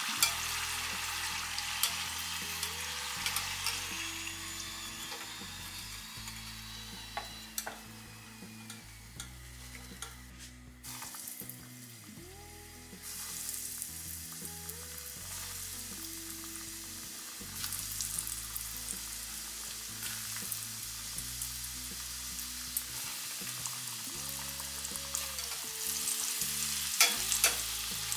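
Chicken popcorn pieces sizzling as they deep-fry in hot oil, with scattered sharp clicks. Soft background music plays underneath.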